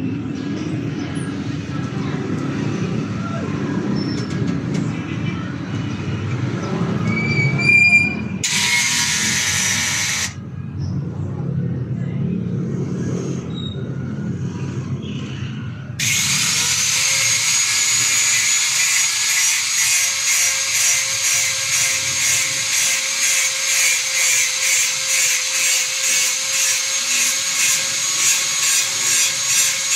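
Handheld electric power tool being run against a wooden counter cabinet. About halfway through its motor spins up with a quick rising whine, then runs steadily with a regular pulsing as it is worked. Before that there is a low rumble and a brief loud hissing burst.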